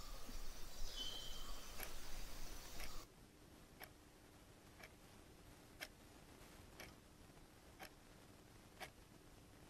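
Outdoor evening ambience with a brief bird call about a second in, cutting off suddenly at about three seconds to a wall clock ticking once a second in a quiet room.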